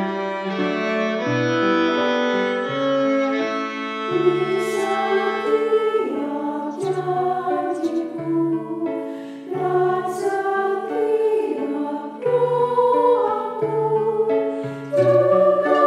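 A women's church choir singing a hymn, accompanied by cello and violin. The strings play alone at first, and the voices come in about four seconds in.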